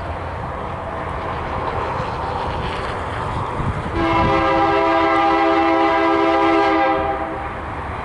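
EMD SD60 diesel locomotive approaching with its engine running, then its air horn sounds one long chord-like blast of about three seconds, starting about four seconds in.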